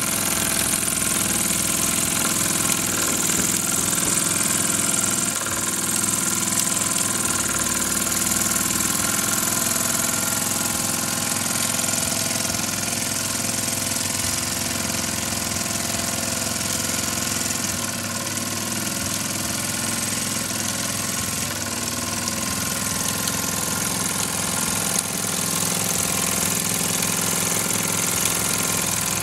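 Maxwell Hemmens model steam engine running steadily under steam from its vertical boiler: a fast, even mechanical beat over a steady hiss.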